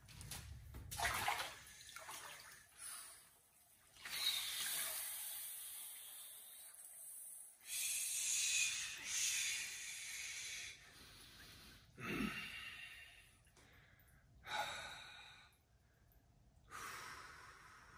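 Heavy, forceful breathing of a man sitting in an ice-cold plunge tub: gasps and long exhales a few seconds apart as he takes the cold shock. Water sloshes near the start as he lowers himself in.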